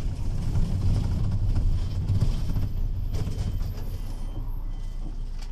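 Steady low rumble of a moving city bus, engine and road noise heard from inside the cabin.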